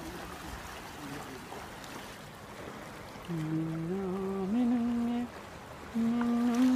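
A man's voice humming a slow tune in long, steady held notes that step upward in pitch, starting about three seconds in. Before it, only the faint wash of sea water lapping on rocks.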